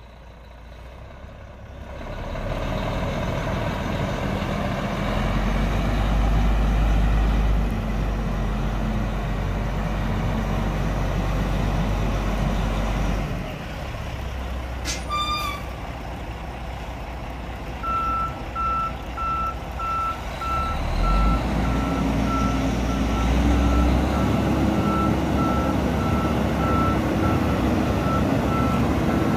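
Kenworth T800 dump truck's Caterpillar C13 inline-six diesel running steadily, with a short high chirp around the middle. From about two-thirds in, the backup alarm beeps at an even pace while the engine works harder as the truck reverses.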